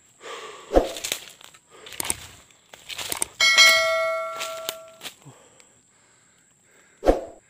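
Subscribe-button animation sound effect: a few quick clicks and swishes, then a bell chime rings out loudly and dies away over about a second and a half, with another sharp click near the end.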